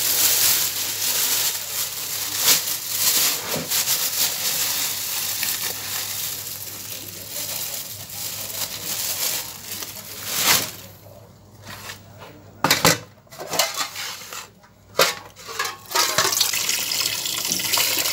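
Tap water running and splashing. In the middle it breaks up into a few short splashes and knocks with gaps between them. It then runs steadily again into a basin of fish being rinsed.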